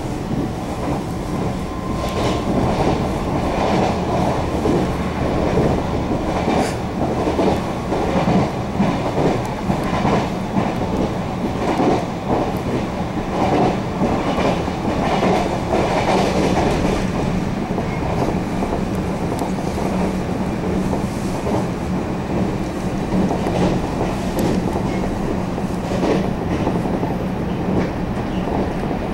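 Taiwan Railway EMU700 electric commuter train running at speed, heard from inside the passenger car: a steady rumble of wheels on rail over a low hum, with scattered clicks as the wheels pass over rail joints.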